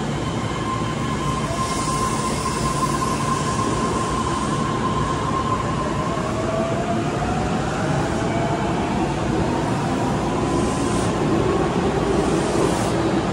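Osaka Metro 400 series subway train pulling out of the station. A steady high electrical whine gives way, from about six seconds in, to a whine rising in pitch as the train picks up speed, over the rumble of the running gear.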